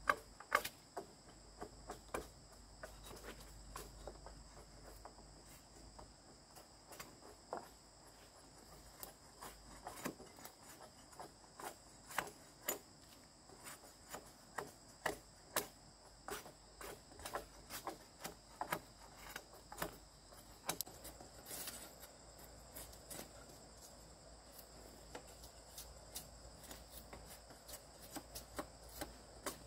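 Insects, likely crickets, trilling steadily at a high pitch, with irregular light clicks and knocks about once or twice a second.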